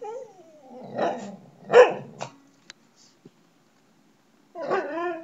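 A mixed-breed dog whining and barking for attention: a falling whine at the start, two barks about a second and two seconds in (the second the loudest), then a longer whining call that rises and falls near the end.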